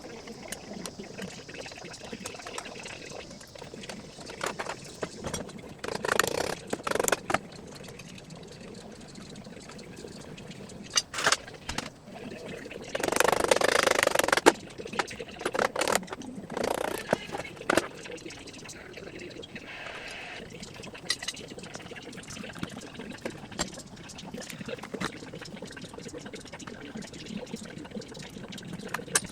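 Transmission oil draining out in a steady trickling pour into a drain pan, broken by several bursts of metallic clanks and knocks, the loudest a bit under halfway through.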